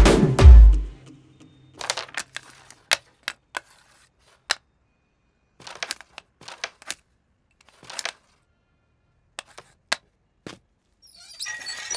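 Background music ends about a second in. Then a string of phone camera shutter clicks follows at irregular intervals, some single and some in quick clusters, as selfies are taken.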